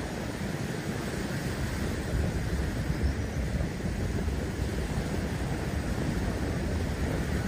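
Wind rumbling on the microphone in a low, uneven wash, with small waves lapping at the water's edge.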